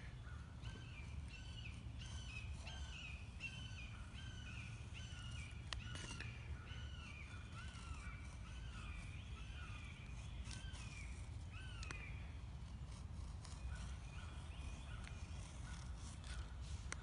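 A bird calling over and over, short clear calls about two a second, stopping about twelve seconds in with only a few scattered calls after, over a steady low outdoor rumble. A couple of faint clicks come between the calls.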